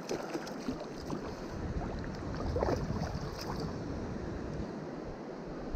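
Water splashing and lapping as a hooked trout thrashes at the surface close in, over the steady wash of the river, with some wind rumble on the microphone.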